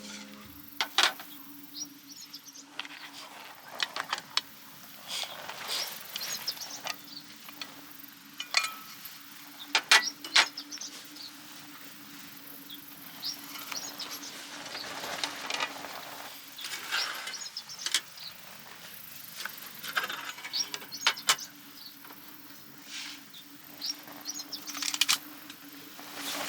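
Scattered sharp clicks and knocks, a few of them loud, over a background of short bird chirps and insects, with a faint steady hum underneath.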